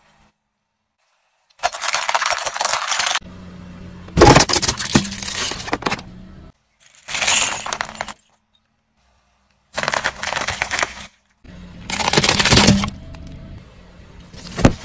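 A car tyre crushing a run of different objects one after another: short bursts of cracking and crunching, each a second or two long, some with a sharp snap at the start, each broken off suddenly by silence.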